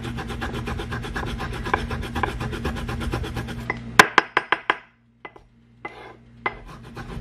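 Fresh ginger root rasped on a small metal hand grater in quick, even back-and-forth strokes. About four seconds in the grating stops for a quick run of sharp knocks of the grater on a wooden cutting board, then a short quiet pause before the rasping starts again near the end.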